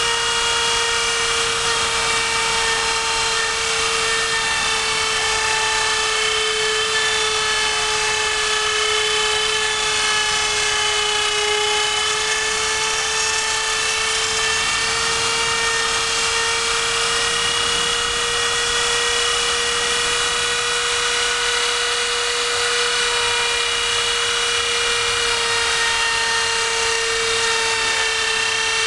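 CNC router spindle running with a steady high whine while its end mill cuts into an aluminium plate, over a constant hiss of cutting, the pitch wavering slightly now and then.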